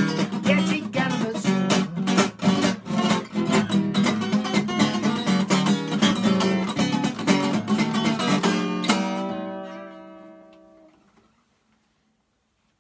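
1934 Gibson L-00 acoustic guitar played in a steady blues rhythm, ending about nine seconds in on a final chord that rings and dies away over about two seconds.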